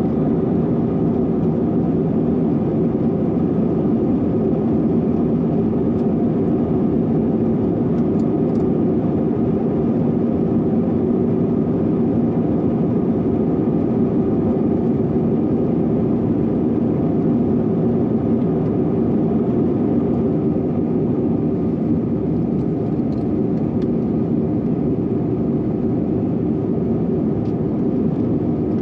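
Airbus A321 cabin noise in flight: the steady, even roar of the jet engines and airflow heard from inside the passenger cabin, with a few faint ticks.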